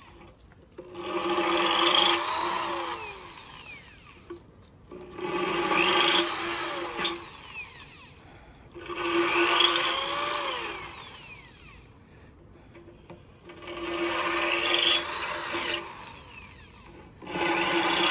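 Cordless drill with a large auger bit boring through the bottom of a clay basin, enlarging drainage holes. The drill runs in five bursts of about two to three seconds each, with short pauses between.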